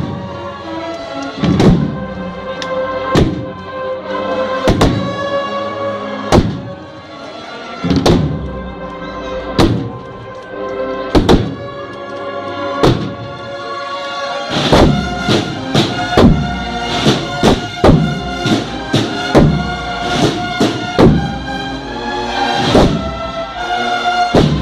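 Processional band playing a slow march: wind instruments hold a sustained melody over drum strokes about every one and a half seconds, the drumming turning faster and denser from about halfway.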